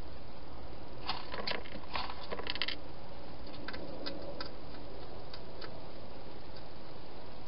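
Hedgehog eating from a bowl: a quick run of clicky crunches in the first three seconds, then scattered single clicks, over a steady hiss.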